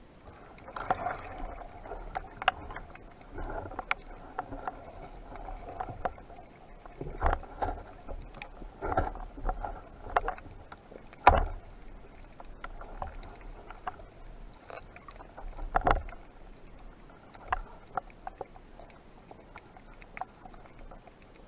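Water sounds with irregular clicks and knocks, and several louder thumps around the middle, typical of a camera in a waterproof housing during a spearfishing dive.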